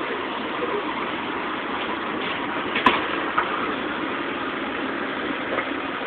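Steady sound of vehicle engines idling, with a single sharp click about three seconds in.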